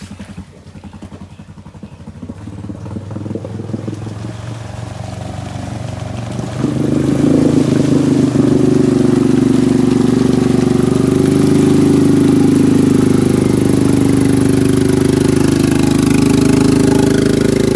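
ATV engine running under load as the four-wheeler pushes through a muddy creek, its tyres churning and splashing the water. The engine is fainter at first, then turns loud and steady about seven seconds in as the machine comes close.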